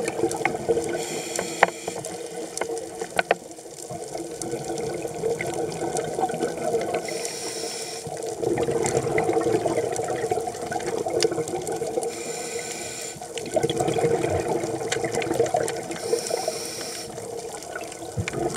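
Scuba diver breathing through a regulator underwater. A short hiss on each inhale comes about every four to five seconds, each followed by a longer, louder rush of exhaled bubbles, over a steady underwater rush.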